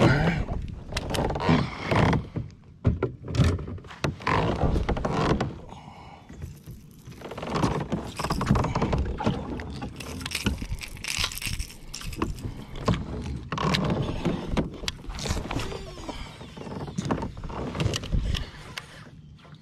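Irregular knocks, rubbing and water noise from a fishing kayak under way, close to the microphone, coming in uneven bursts.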